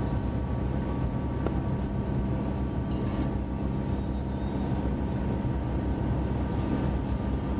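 Interior noise of an electric passenger train running at speed: a steady low rumble from the wheels and running gear with a constant hum of several steady tones, and a few faint clicks.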